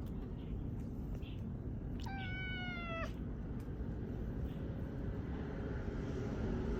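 A cat meows once, about two seconds in: a single call of about a second that holds its pitch and then sags slightly at the end. A steady low rumble lies underneath throughout.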